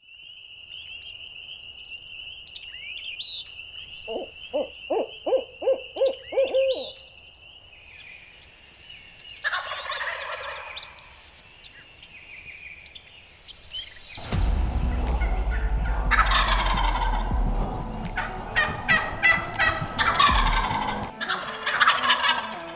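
Wild turkey gobbler gobbling: one rapid rattling gobble about four seconds in over a steady high tone, then another call a few seconds later. About two-thirds of the way through, a louder stretch begins with a deep low rumble and more repeated calls.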